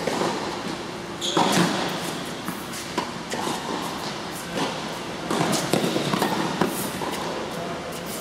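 Tennis rally on an indoor court: balls struck by rackets and bouncing on the court, each knock echoing in the hall, the loudest hit about a second in.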